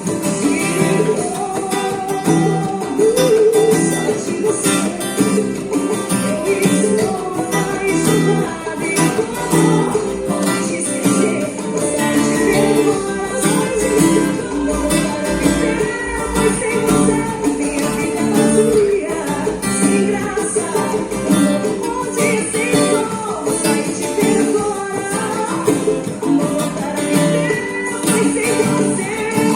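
Takamine acoustic guitar being played, with a continuous run of plucked notes and chords.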